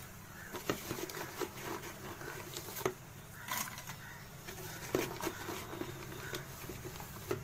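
Makhana (fox nuts) being tipped into a steel pan of ghee: light pattering and scattered sharp clicks as they land on the metal and on each other.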